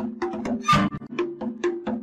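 Background music with a fast, even beat of wood-block-like taps over low sustained notes. A brief, louder, hissy burst comes a little under a second in.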